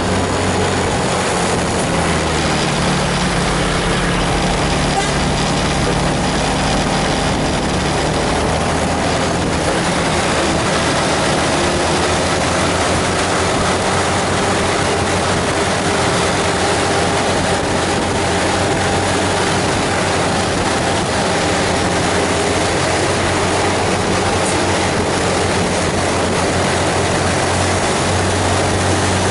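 Bus engine running steadily under load, with a constant hiss of tyres on a wet road.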